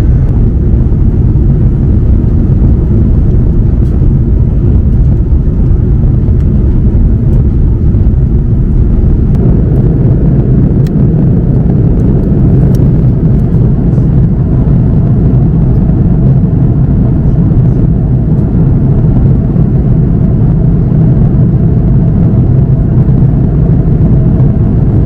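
Steady cabin roar of an Airbus A330-300 airliner in cruise: engine and airflow noise heard from inside the economy cabin. It deepens slightly about nine seconds in.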